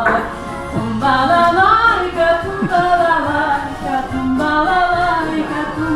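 Singing voice with music, the sung line gliding between held notes over a low bass that comes in about a second in.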